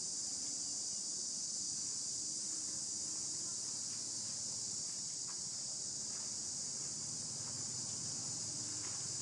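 A steady, high-pitched chorus of insects, unbroken and even in level.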